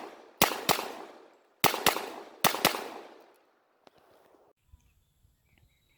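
Pistol shots from a 1911 .45 ACP fitted with a compensator, fired fast: six shots in three quick pairs over about two and a half seconds.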